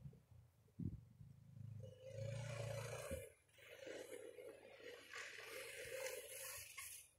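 Arctic Cat ZR 120 youth snowmobile's small four-stroke engine running faintly, a wavering drone that swells and fades and dips briefly about three seconds in.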